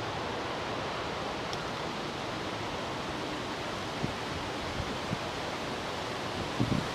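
Steady outdoor rushing noise of wind and water, with a few soft knocks in the second half, the loudest cluster near the end.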